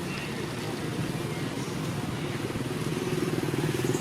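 A small engine running with a fast, even pulse, growing louder near the end.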